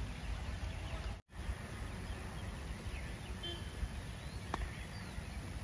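Open-air ambience with a steady low wind rumble on the microphone and faint bird chirps, broken by one sharp tap about four and a half seconds in.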